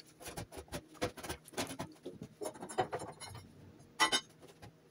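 Irregular wooden knocks, bumps and scraping as long timber floor joists are shifted and jiggled into place against stone walls, with a louder clatter about four seconds in.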